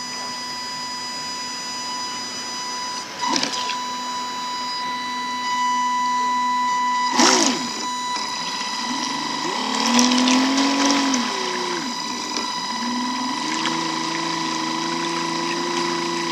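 FT009 RC speedboat's brushless electric motor whining over water noise, its pitch rising and falling as the throttle changes from about halfway through, with two sharp knocks in the first half.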